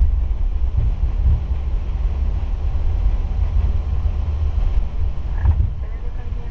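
Steady low rumble inside the cockpit of an Airbus A330-300 rolling out along the runway after landing: the wheels and airframe rumbling over the runway surface.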